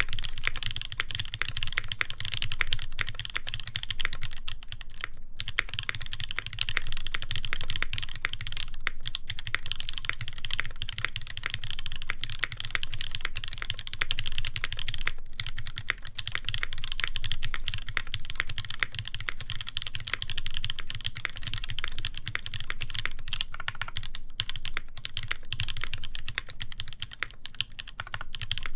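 Continuous fast typing on an Iron180 mechanical keyboard with a brass plate, lubed Moss switches and GMK keycaps: a dense run of keystroke clacks with brief pauses around five and fifteen seconds in.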